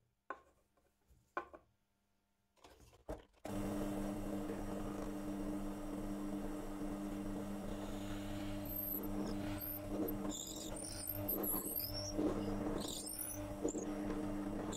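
A couple of sharp clicks, then a small power tool's motor starts and runs steadily, holding an even pitch, with high wavering squeaks over it in the second half.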